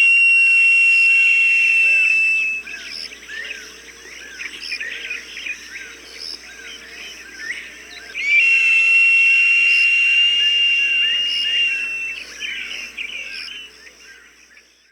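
Hawk calling: two long, high, steady screams, the second longer, over a background of small birds chirping.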